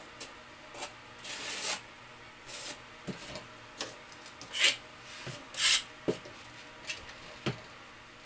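A trowel scraping thinset mortar across the back of a tile strip, back-buttering it, in about five short strokes. There are a few light knocks in between.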